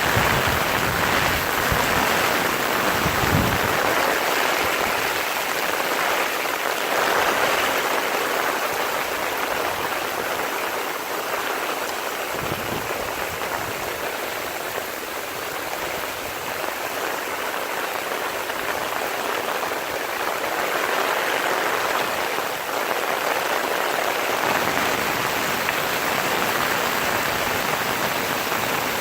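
Heavy rain falling hard, a steady dense hiss that swells and eases slightly over the seconds.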